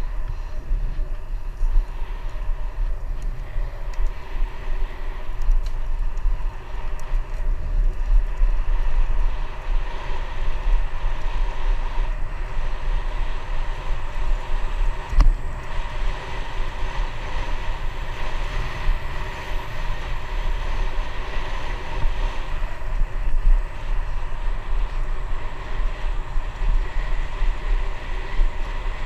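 Bicycle riding on a paved trail: wind buffeting a handlebar-mounted camera's microphone as a deep, steady rumble over the hiss of tyres rolling on the surface. One sharp knock about halfway through.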